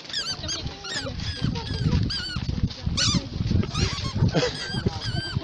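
Many short, high-pitched squeaky calls that bend up and down in pitch, following one another in quick succession and thickest about four seconds in, over a low rumble of a group moving about.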